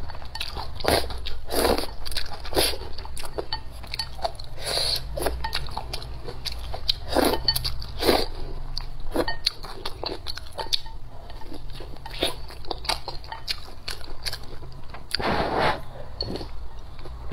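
Close-up eating sounds from a bowl of spicy noodle soup: noodles slurped in, then wet chewing with many short smacks and clicks. A longer, louder slurp or bite comes near the end.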